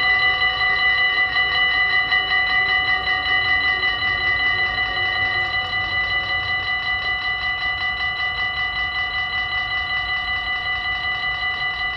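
Dutch level-crossing warning bells ringing rapidly and evenly while the crossing is closed and the barrier arms come down. A fainter, lower hum fades out about halfway through.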